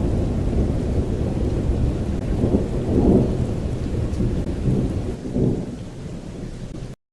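Thunder rumbling over steady rain, swelling about three seconds in and again near the end, then fading and cutting off abruptly.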